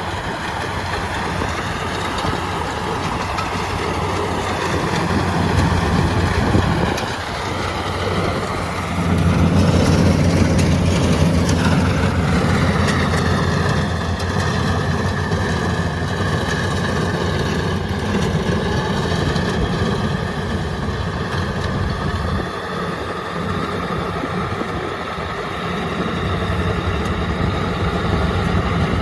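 Yanmar rice combine harvester running steadily under load, its engine note swelling and easing, with two brief dips, and a whining machinery tone above it in the second half.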